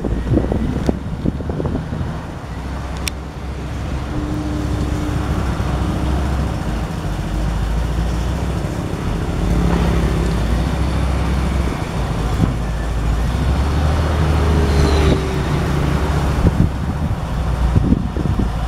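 Komatsu WA350 wheel loader's diesel engine running under load as it drives and pushes rubble with its bucket, the engine note rising and falling, louder about halfway through and again a few seconds later.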